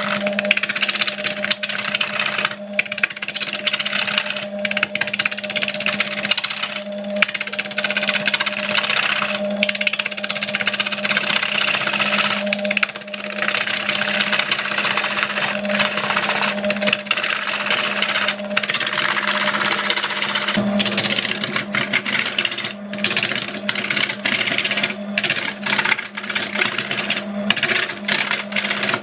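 Wood lathe spinning a large log while a gouge cuts into it: a steady motor hum under the rough scraping hiss of the cut, which swells and fades as the tool is pushed in and eased off, with brief breaks.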